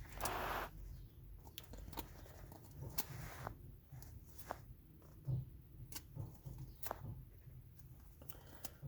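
Faint rustling and scattered light clicks of trading cards being handled, with a brief louder rustle just after the start.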